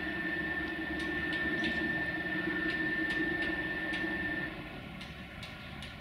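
Electric screw lifting jacks running with a steady high whine and hum as they raise a railway passenger coach, stopping about four and a half seconds in. Light metallic clicks come through now and then.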